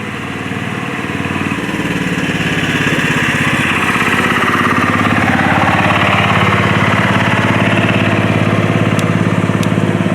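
A small engine running steadily, swelling over the first few seconds and then holding at a level.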